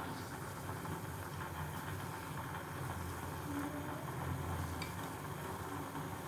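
Pot of tamarind rasam boiling on a stove burner: a steady low rumble, with a faint click about five seconds in.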